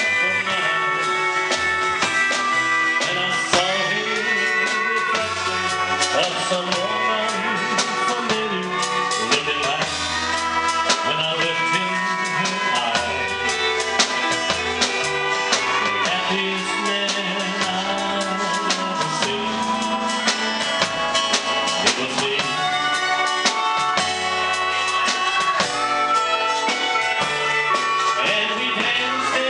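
Live country dance band playing with a steady beat: fiddle and pedal steel guitar over upright bass and drum kit.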